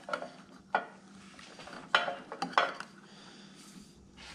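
Light metallic clinks and knocks, about six of them spread over the first three seconds, as a cast aluminium intake manifold end casting and its fittings are handled and shifted on an air-cooled VW Type 1 engine.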